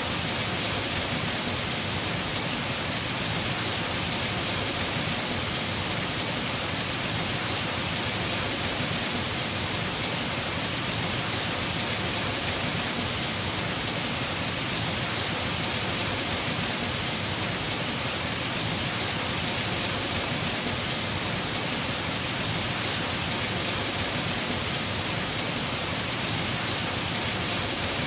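Heavy rain falling steadily on a house roof, a dense even hiss of drops.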